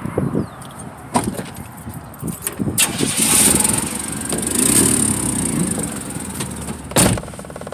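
Getting into a 4x4 truck: several door and body clunks, then the engine starts about three seconds in and runs, and a door slams shut near the end.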